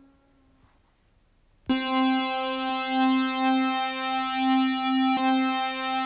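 Sampled classic synthesizer notes played back one after another, the second one looped so it sustains. The tail of one note fades out, and after about a second of near silence a bright held note starts suddenly and carries on steadily, with a faint click about five seconds in.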